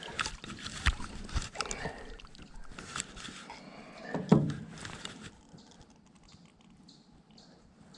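Scattered knocks and clatter from handling a fish and tackle in a John boat, with one heavier thump about four seconds in, then quieter.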